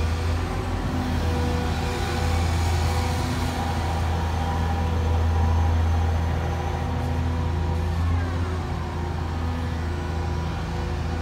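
Cat M322D wheeled excavator's six-cylinder diesel engine running steadily with its hydraulics working as the upper structure swings round and back. A falling whine about eight seconds in.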